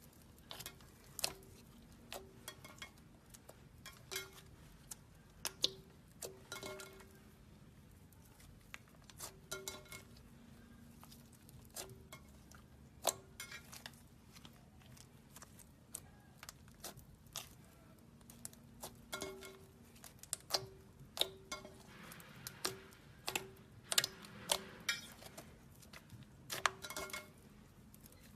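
Slime being kneaded and mixed, making irregular sticky clicks and small pops.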